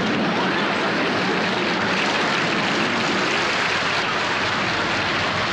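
Steady rushing roar of a television earthquake sound effect as the house lurches and collapses.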